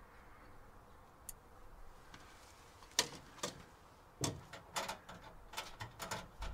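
Metal door of a stainless-steel smoker cabinet shut with a sharp click about three seconds in, followed by a run of light metallic clicks and knocks.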